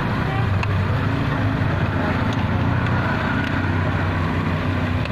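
An engine idling with a steady low hum, with a few faint metallic clicks of a socket wrench tightening a battery terminal clamp.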